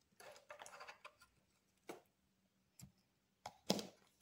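Kitchen handling sounds: a short soft rustle in the first second, then a few isolated light clicks, the sharpest near the end.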